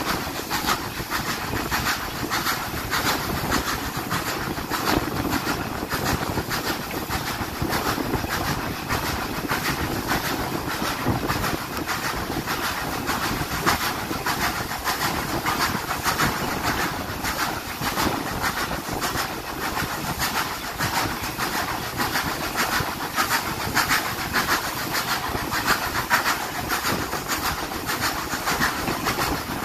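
Train running along the track: a steady rumble with a constant rapid patter of knocks from the wheels and running gear.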